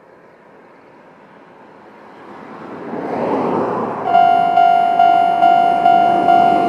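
A Japanese level-crossing warning alarm of the older electronic type starts up about four seconds in, sounding a fast, repeated ding-ding a little over twice a second. Just before it, a rush of noise swells and fades.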